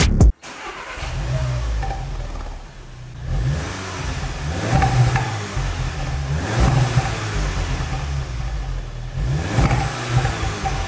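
Volkswagen Polo GTI engine and exhaust, running and revved up briefly three times, about two seconds apart.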